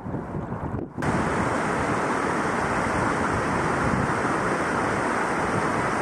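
Snowmelt waterfalls cascading down a rock cliff: a steady rushing of falling water, which about a second in turns louder and brighter and then holds even.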